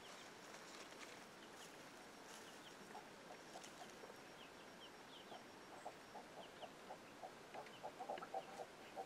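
Chickens clucking: faint at first, then from about halfway a quick run of short, repeated clucks that grows louder toward the end, with faint high chirps scattered throughout.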